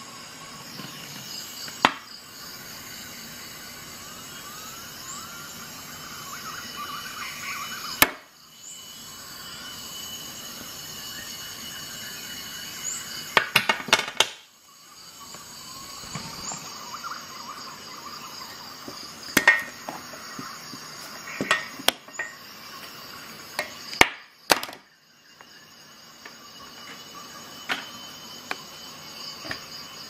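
Handling noise of tools and objects on a desk: scattered sharp clicks and knocks, some in quick clusters, over a steady background hiss with faint steady tones. The background drops out briefly three times.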